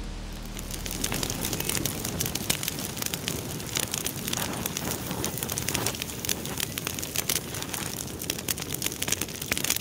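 Wood campfire crackling, with many sharp pops and snaps over a steady hiss.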